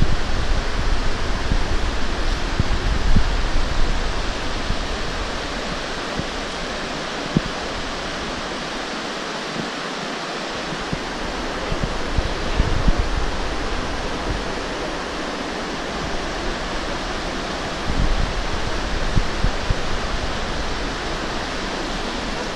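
Steady rush of a river running over rocks, with wind rumbling on the microphone in the first few seconds and a few light knocks.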